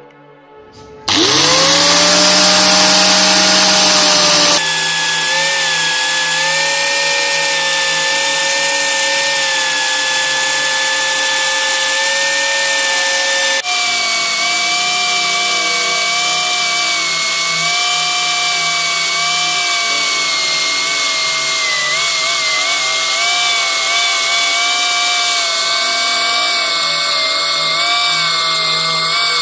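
Electric disc sander spinning up about a second in, then running with a steady whine while wooden knife-handle scales are sanded against the disc. The pitch jumps abruptly twice.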